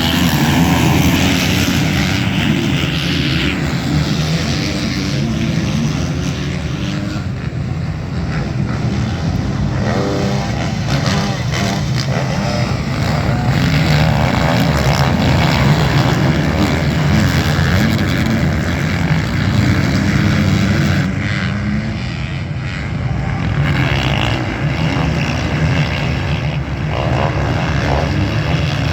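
Motocross bikes racing on a dirt track, their engines running hard and rising and falling in pitch as they work through the track, with no break in the engine noise.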